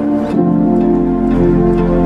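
Background music: a slow instrumental piece of held, sustained notes, shifting to a new chord about a third of a second in.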